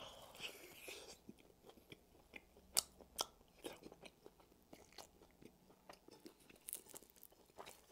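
Mouth-close eating of a baked slice of Hawaiian pizza: a bite, then chewing with scattered crisp crunches of the crust, two of them louder about three seconds in.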